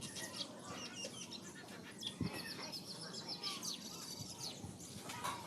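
Several small birds chirping and twittering, with a fast, even trill of repeated high notes about two seconds in that lasts about a second.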